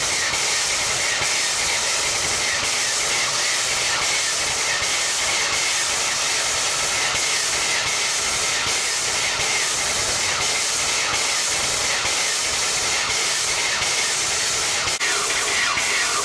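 Steam tank locomotive standing still with steam up, hissing loudly and steadily as steam escapes.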